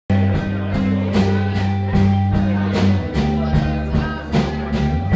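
Rock band playing live: electric guitars and bass over a steady drum beat, cutting in suddenly at the very start.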